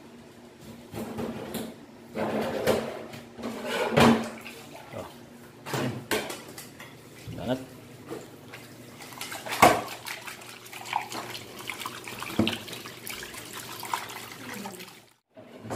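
Kitchen tap running as raw fish is rinsed in a metal pot at a stainless steel sink, with irregular clatter and knocks of the pot and knife against the sink, the loudest about four seconds in and just before the ten-second mark.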